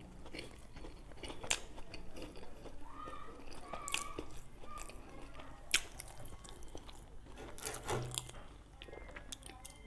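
Close-miked chewing of a homemade donut: wet mouth noises broken by scattered sharp smacks and clicks of the lips and tongue.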